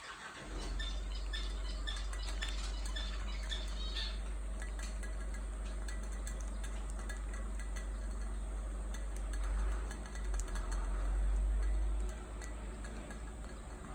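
Pet budgerigar giving short soft chirps in the first few seconds, with small clinks, over a steady low rumble that swells briefly near the end.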